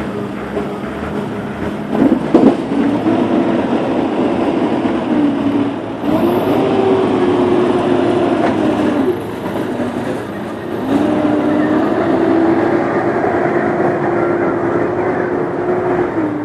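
Excavator working: its diesel engine runs under load, with the engine and hydraulic note rising and holding steady in three spells of a few seconds each. There are a couple of sharp knocks about two seconds in.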